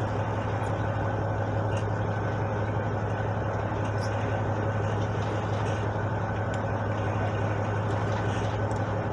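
A fishing boat's engine running at a steady low hum, heard on board.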